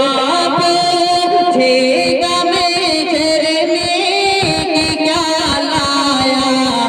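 Male voice singing a naat into a microphone, drawing out long held notes with ornamented turns in pitch.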